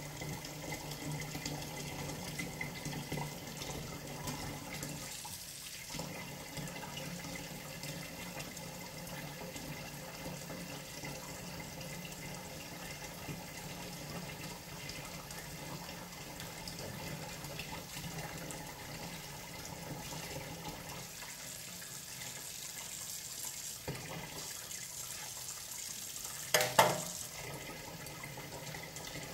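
Kitchen tap running into the sink while a milkfish is cleaned under it. Near the end there is a brief, loud double clatter.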